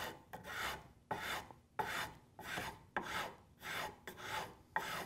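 Sandpaper on a hand sanding block rubbed back and forth along the rounded-over edge of a wooden rocking-chair rocker, about eight even rasping strokes. This is the final smoothing of the profile after card scraping.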